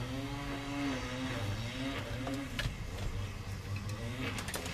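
An engine running steadily in the background, its pitch wavering a little, with a few sharp clicks about two and a half seconds in and several near the end as wires are handled.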